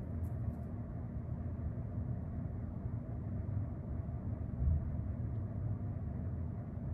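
Steady low background rumble with no speech, and a brief soft swell about two-thirds of the way through.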